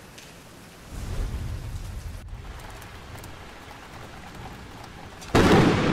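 Thunderstorm: steady rain hiss, with low thunder rolling in about a second in and a loud, sudden thunderclap near the end.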